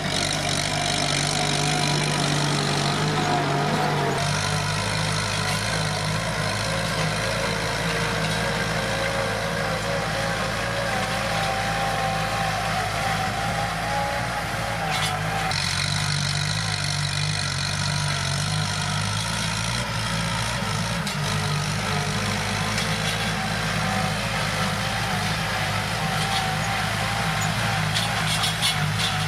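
Kubota M7040 tractor's diesel engine running steadily. Its note shifts abruptly about four seconds in and again about halfway through.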